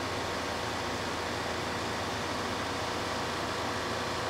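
A running machine's steady hiss with a low hum underneath, even and unchanging.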